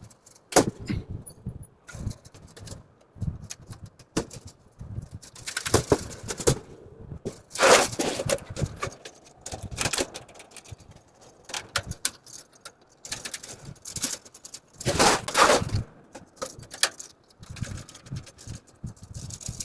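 Stainless steel dish rack parts clinking, knocking and scraping against each other as they are fitted and bolted together. The sound comes as irregular sharp clicks and rattles, with longer, louder scrapes about 8 and 15 seconds in.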